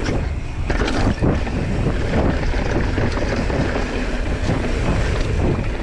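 Mountain bike riding fast down a dirt singletrack: wind buffeting the camera microphone over a steady low rumble, with frequent small clatters from the bike as it rolls over the rough trail.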